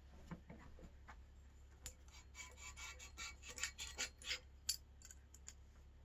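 Light metallic clicks and clinks of bicycle headset parts being handled: the stem is slid off the fork's steerer tube. The clicks come in a quick run through the middle.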